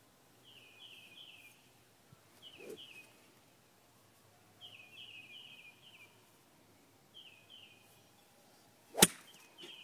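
A golf driver striking a ball off the grass: one sharp crack about nine seconds in. Before it, a bird chirps in repeated short runs of quick descending notes.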